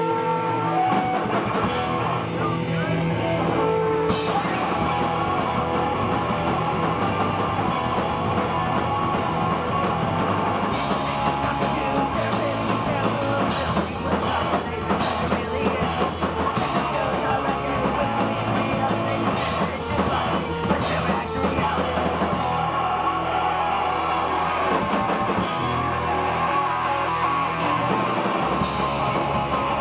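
Live rock band playing a song: electric guitars and bass over a drum kit.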